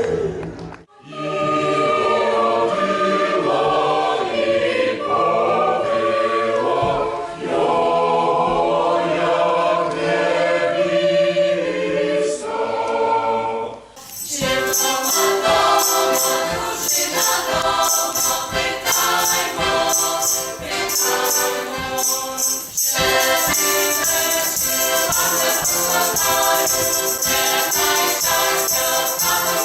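A choir singing, cut between passages by edits about a second in, about halfway through and again around three quarters of the way; in the later passages a bright jingling shimmer sits above the voices.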